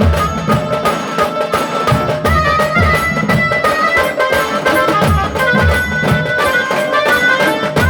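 Tasa band playing: fast, dense tasa drum strokes over deep bass-drum beats, with a melody line held above the drumming.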